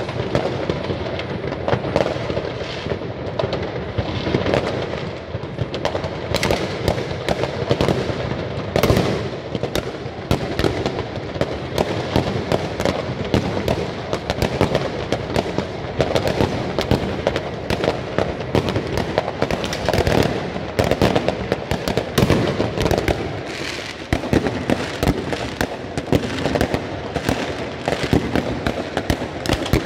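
Many fireworks going off at once: a continuous din of overlapping bangs, crackles and pops with no break.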